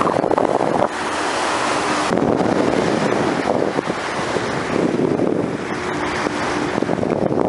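Sea water rushing and splashing along a boat's bow, rising and falling every second or two, with wind buffeting the microphone.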